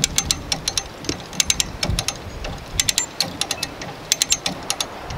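Come-along hand winch ratcheting as its handle is pumped to tighten the cable pulling on a stump: short bursts of several sharp pawl clicks, about one burst every second and a half.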